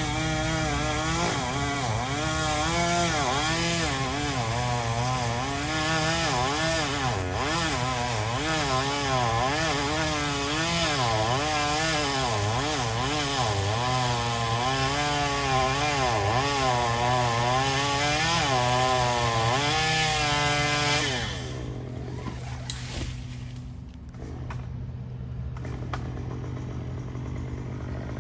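Chainsaw running at full throttle cutting pecan wood, its pitch wavering up and down as the chain loads and frees in the cut. About 21 seconds in the revs fall away and it drops to a quieter idle.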